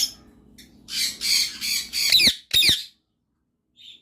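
A bird giving a few harsh, raspy squawks, the last two ending in quick downward whistles, then cutting off suddenly.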